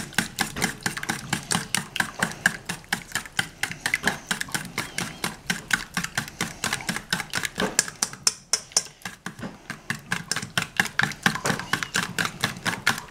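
Eggs and cream being beaten by hand in a stainless steel bowl: the utensil clicks rapidly against the metal, about five strokes a second, with a short break a little past the middle.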